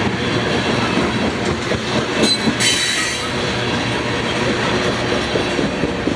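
Freight train tank cars and a covered hopper rolling past, with a steady rumble and wheels clicking over the rail joints. About two seconds in, a short high squeal turns into a hiss.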